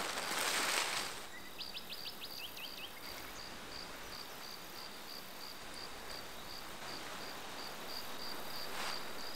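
Tent fabric rustling as it is spread out on the ground for about the first second, then an insect chirping steadily about twice a second, with a short run of quick high chirps near the start and a brief swish of fabric near the end.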